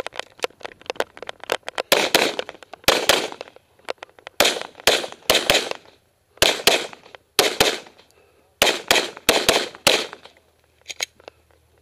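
Semi-automatic pistol firing rapid shots during a practical-shooting stage, mostly in quick pairs, with brief pauses between strings.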